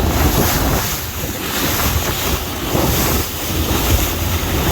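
Wind buffeting the microphone: a continuous rushing noise with a heavy, fluttering low rumble.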